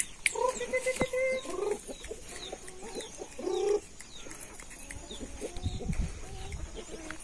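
Free-range mixed-breed chickens clucking, short calls of a few notes each in three bursts, with a low rumble near the end.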